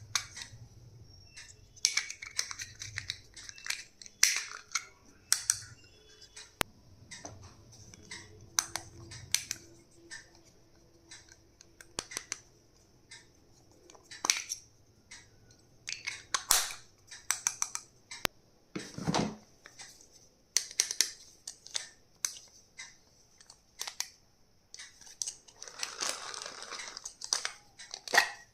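Hands handling stationery and its packaging at close range: irregular clicks and taps of small plastic items, a heavier knock about two-thirds of the way through, and a longer rustle of packaging near the end.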